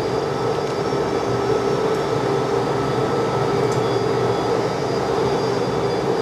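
McDonnell Douglas DC-10 jet engines running at a steady pitch: a constant drone with a steady whine on top, neither rising nor falling.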